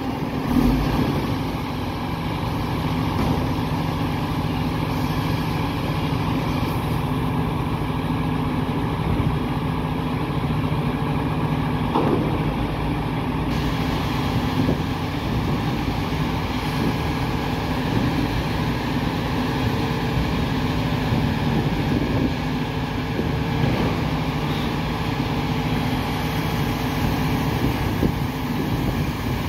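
MAN TGS 26.320 refuse truck's six-cylinder diesel engine idling steadily while the truck stands still for loading, with a bump about a second in and a brief knock near the middle.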